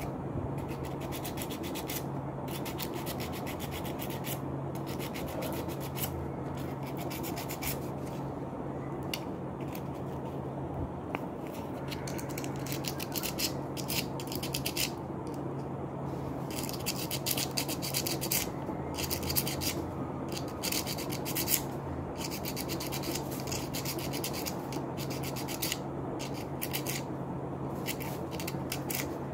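Sandpaper rubbed quickly back and forth over a relay's contacts to scour off built-up dirt: a rapid scratchy rasp of many short strokes, busier in the second half. A steady low hum runs underneath.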